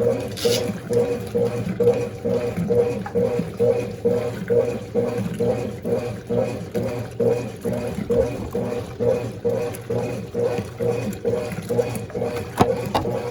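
Top-loading washing machine agitating a load of dark clothes in water at the medium level: the motor hums and the agitator swings back and forth in an even rhythm of about two pulses a second, with water sloshing.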